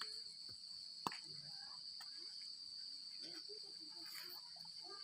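Steady, high-pitched chorus of insects, unbroken throughout, with a single sharp click about a second in.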